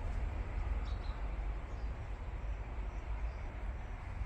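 Steady low outdoor rumble with a faint bird chirp about a second in.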